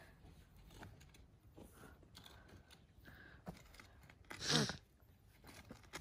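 Quiet outdoor ambience with faint scattered clicks and rustles, broken about four and a half seconds in by a brief voiced sound, a short wordless vocalisation from a person.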